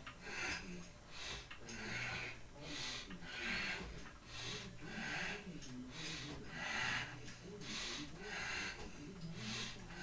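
A man breathing hard through nose and mouth while bench pressing a barbell: short, forceful breaths in and out, a little more than one a second, the strain of lifting.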